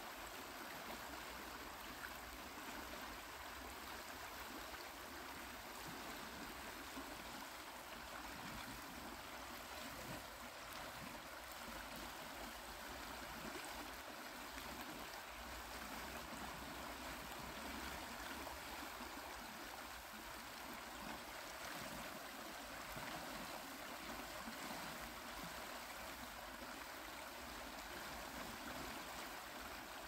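Shallow river water running and rippling over stones, a steady, even rush.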